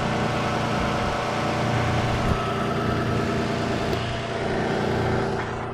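Car engine idling steadily after being jump-started from a portable lithium jump-starter pack on a dead battery.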